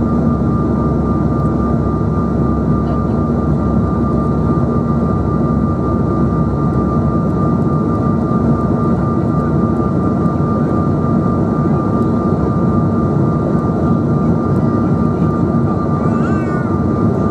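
Cabin noise inside a Bombardier CRJ900 on final approach: its rear-mounted General Electric CF34 turbofan engines running steadily, a constant high whine and low hum over the rush of airflow.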